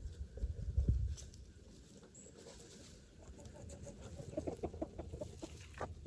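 Pigeons cooing in a loft, with a run of short low coos about four seconds in. A few dull handling thumps come in the first second.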